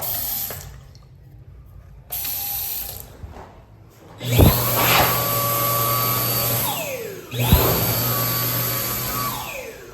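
Toto Tornado flush toilet flushing: a loud rush of water in two surges about three seconds apart. Each surge opens with a thump and carries a steady whistle, and falling tones follow as the bowl drains. Two shorter splashes of water come before them.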